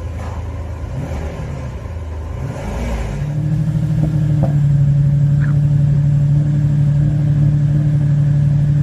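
Ferrari 456's V12 engine is revved unevenly for about three seconds. It then settles into a louder, steady run at held revs.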